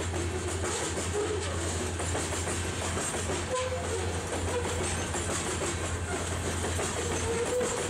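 Freight train of covered hopper cars rolling past, steady wheel and rail noise with the clickety-clack of wheels over rail joints.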